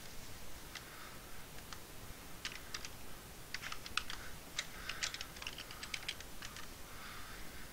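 Computer keyboard being typed on: faint, irregular keystrokes in quick runs, starting about a second in and stopping a little before the end.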